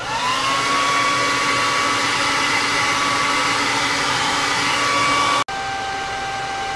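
Handheld hair dryer switched on, its motor whine rising quickly and then running steadily while it blows hot air onto a rubber hose. After a sudden break about five and a half seconds in, it carries on at a lower, slightly quieter whine.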